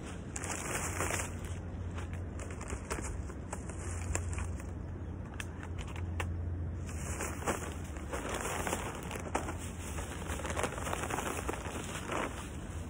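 Plastic bags and a plastic tarp rustling and crinkling in irregular bursts as picnic gear is handled and laid out, with scattered small clicks over a steady low hum.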